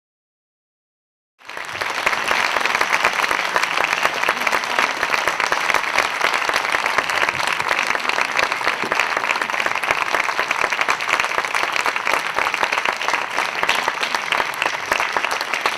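Audience applauding: dense, steady clapping that starts about a second and a half in.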